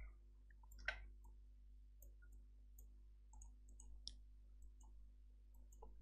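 Near silence with faint, scattered computer mouse clicks, the clearest about a second in, over a low steady hum.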